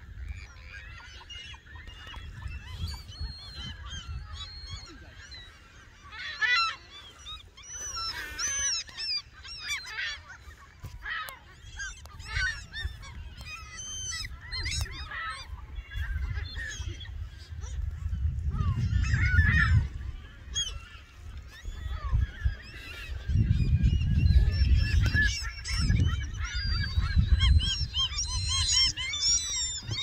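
A flock of gulls calling, many short cries overlapping, busiest in the middle and near the end. Under the calls runs a low rumble of wind on the microphone, which swells louder in the second half and is at times the loudest thing.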